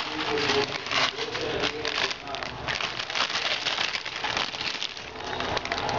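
Plastic noodle packet crinkling and rustling as dry noodles are shaken out of it into a pot of hot water. A voice is heard in the first two seconds or so.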